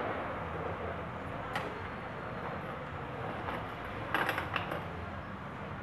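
Steady low background noise with a faint click, then a short run of clicks and rattles about four seconds in, from a parked motorcycle being handled.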